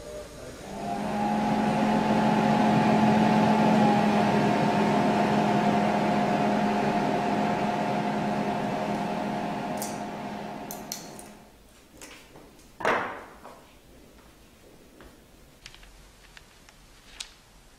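Steady electrical machine hum from the equipment of an electric glass-fusing kiln, with a low tone under a higher whine. It swells in about a second in and fades out after about eleven seconds. Then comes a short rustle of paper about thirteen seconds in, followed by faint paper handling and light clicks.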